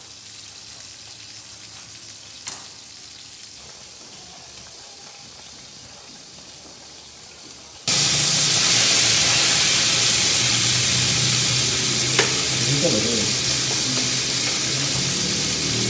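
Chorizo sausages sizzling loudly in a frying pan over a gas burner, starting suddenly about halfway through, with a sharp clink of metal tongs against the pan a few seconds later. Before that it is quiet apart from a single light knock.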